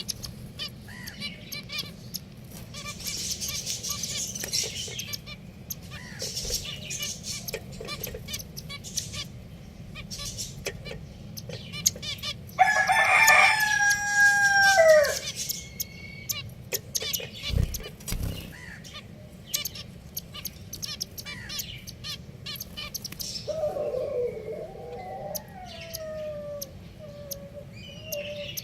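Pet finches chirping, many short high calls throughout. About halfway through, one louder, drawn-out bird call lasts some two seconds, and a lower warbling call follows near the end.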